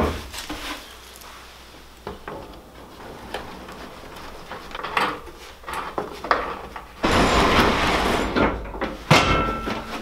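Handling noise from work on a riding-mower deck on a plywood floor: scattered knocks and clicks, then a louder stretch of scraping and clatter starting about seven seconds in, with a sharp knock near the end.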